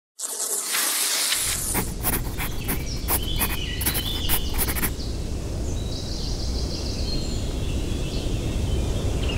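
Countryside ambience: a steady low rumble with short high chirps of small creatures. A quick run of sharp clicks and crackles comes between about two and five seconds in.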